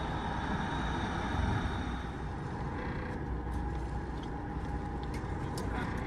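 A boat's engine running steadily, with a few light clicks in the second half.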